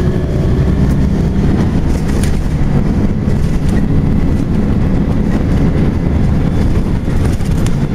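Volvo B10BLE single-deck bus's diesel engine running with its loud cooling fan going, a steady heavy low rumble.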